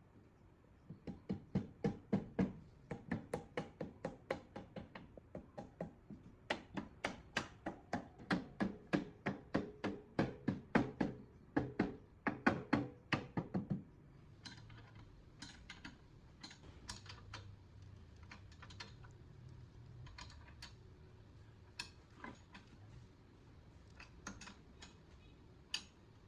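Metal struck in quick, even blows, about three a second, each with a short ring. The blows stop about 14 seconds in, followed by scattered lighter clicks and taps.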